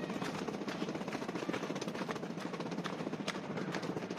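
Footsteps of someone walking on a paved path: many irregular short taps over a steady outdoor background noise.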